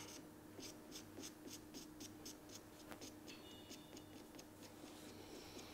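Faint, quick strokes of a felt-tip marker pen rubbed back and forth over the steel bevel of a plane blade, about four strokes a second, blackening the cutting edge so the honing contact will show. A low steady hum runs underneath.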